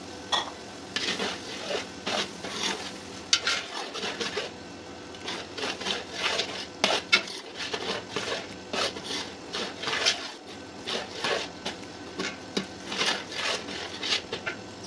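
Long metal ladle scraping and clinking against the sides and bottom of a large aluminium cooking pot while stirring a thick masala, in irregular strokes about one or two a second.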